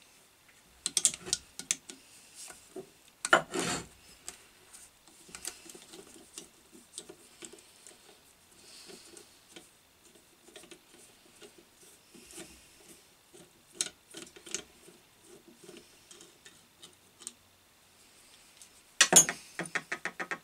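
Metal hand tools clicking, tapping and scraping against the end cover of a single-phase Crompton Parkinson induction motor as it is worked loose, with a clatter a little over three seconds in and a quick rattle of clicks near the end.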